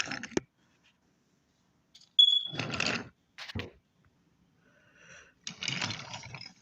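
A short, high whistle tone about two seconds in. Then bursts of clattering noise as wooden toy engines are moved along the track, once near the middle and again near the end.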